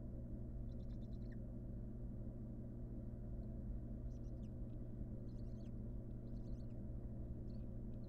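Barn owls in a nest box giving short, high, scratchy twittering calls in about five brief bursts, with a pause of a few seconds after the first, over a steady low hum.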